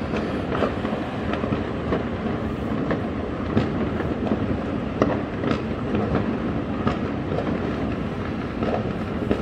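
Dense crackle and popping of many distant firecrackers and fireworks across a city, a steady rumble with louder single bangs standing out now and then.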